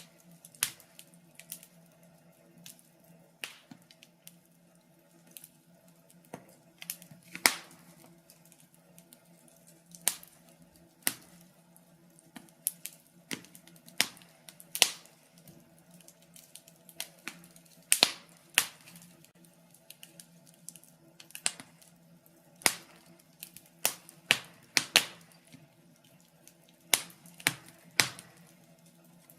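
Wood fire crackling in a fireplace: irregular sharp pops and snaps, one or two loud ones every second or so among smaller ticks, over a faint steady hum.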